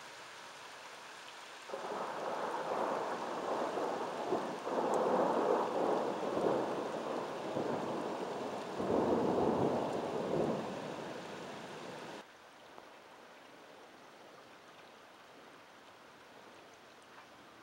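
Thunder rolling in several swells for about ten seconds over steady rain, then cutting off suddenly; the rain goes on alone.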